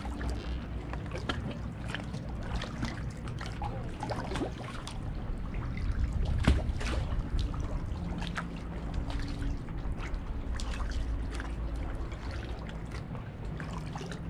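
Kayak paddling: paddle blades dipping and dripping, with water splashing and lapping against the hull of a Wilderness Systems Pungo kayak over a steady low rumble. One louder splash comes about halfway through.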